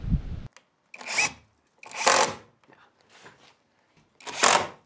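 Wooden shims being worked in between the French door's jamb and the wall framing: four scraping strokes of wood rubbing on wood, each about half a second long.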